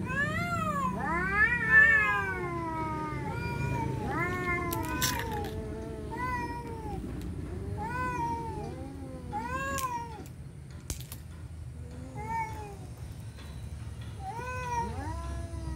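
Cats meowing back and forth, one call after another with some calls overlapping, each call rising then falling in pitch. There are two sharp clicks partway through.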